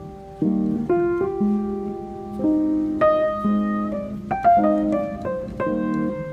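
Background piano music: chords and single notes played at an easy pace.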